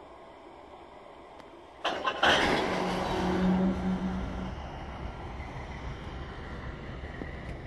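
Freight train passing, its rumble and rail noise coming in suddenly about two seconds in after low background noise, with a steady low engine tone for about two seconds, then a steady rumble.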